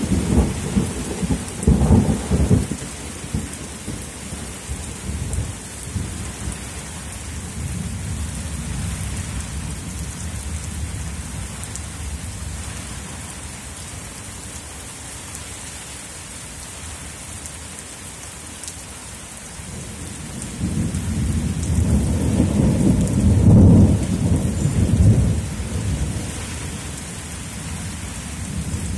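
Steady hiss of heavy rain. Deep rolling thunder rumbles briefly near the start and again, longer and louder, about two-thirds of the way through.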